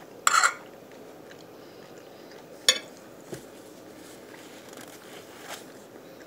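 Metal fork clinking and scraping against a dinner plate while cutting food: a loud cluster of clinks just after the start, another sharp clink about two and a half seconds later, and a few faint taps after that.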